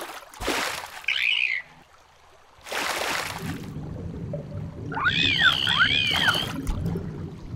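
Cartoon sound effects of dolphins and water. There are two splashes, one just after the start and one about three seconds in, and a short whistle after the first. About five seconds in comes a burst of chirping, arching dolphin whistles over a low, muffled underwater background.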